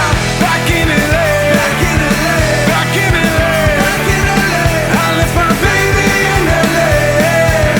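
Rock band music with drums, bass and a gliding lead melody over a steady beat.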